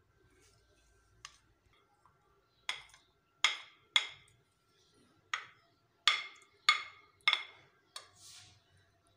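A plastic spatula and a plate knocking sharply against the rim of a ceramic bowl, about nine times, as chopped vegetables are scraped into it, with a short scrape near the end.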